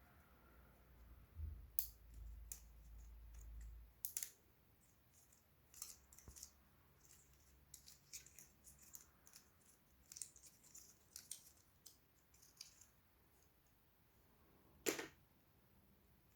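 Small scattered clicks and taps from handling the AirPods Pro packaging and charging case, with a low rumble a couple of seconds in and one louder snapping click near the end.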